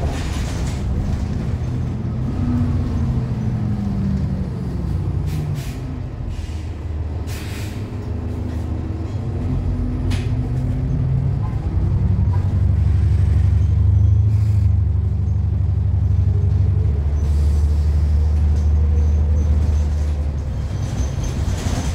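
Inside a 2013 New Flyer XDE40 diesel-electric hybrid bus in motion: the Cummins ISL9 diesel runs steadily with gliding drive-whine pitches, and there are a few short hisses of air from the air brakes near the middle. In the second half the engine runs louder and deeper, pulling the bus along.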